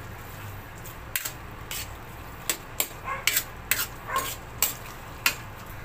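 Metal ladle knocking and scraping against a stainless-steel wok of thick stew as it is stirred: short, sharp clinks at irregular intervals, about nine in all, over a low steady hum.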